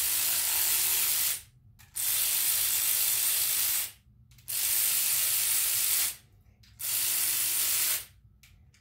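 Power ratchet running bolts down on an engine's rear main seal block in four short runs with brief pauses between, a steady hissing whir each time, as each bolt is snugged lightly to about 2 or 3 foot-pounds.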